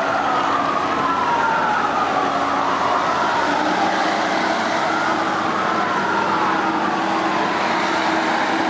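Several fire brigade vehicle sirens wailing together, their slow rising and falling tones overlapping, as the vehicles drive past with engines running underneath.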